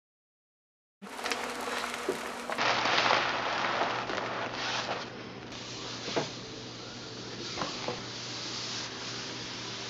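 Peel-and-stick wallpaper panel pulled away from a textured wall by hand and handled: a rustling peel with a few sharp clicks. It starts after about a second of dead silence.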